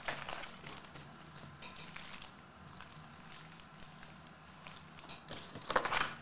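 Crinkling of Topps Chrome trading-card pack wrappers as the packs are handled and stacked, in scattered light crackles with a louder rustle near the end.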